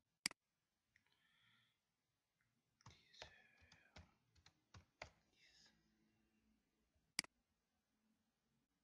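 A sharp computer mouse click, then a quick run of computer keyboard keystrokes, then another sharp mouse click near the end.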